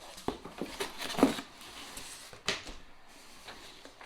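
Parts and packaging being handled during an unboxing: several light knocks and clicks, the sharpest about two and a half seconds in.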